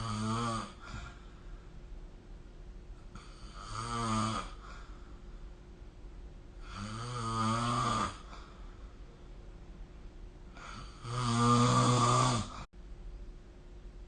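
A sleeping person snoring: a snore ending just after the start, then three more, about four seconds apart. Each is a low, wavering drone, and the last one, near the end, is the loudest and longest.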